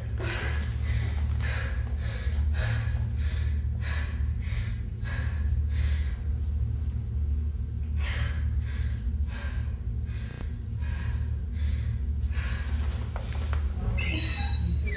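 A young woman breathing fast and heavily, about two sharp breaths a second with a short pause partway through, over a steady low hum. A brief high squeal comes near the end.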